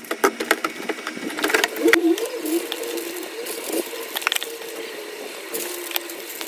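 Plastic clicking and crinkling as small plastic packets of beads are handled and set into a plastic storage drawer, busiest in the first two seconds, with a low wavering hum underneath.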